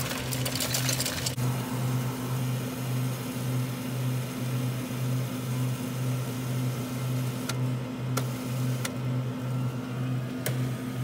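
Self-serve soda fountain pouring Pepsi into a foam cup: a steady hiss of fizzing soda over a low hum that pulses about twice a second, with a few short clicks in the second half.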